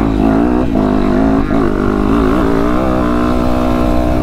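A 2020 Yamaha YZ450F's single-cylinder four-stroke engine, with an Akrapovic titanium exhaust, pulling hard under load on a motocross track. The revs rise and fall, with brief throttle cuts about half a second and a second and a half in, then hold steady for the last couple of seconds.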